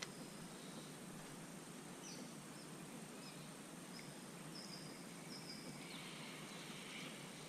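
Faint outdoor ambience on open water: a steady low hiss with a few short, high chirps scattered through the middle.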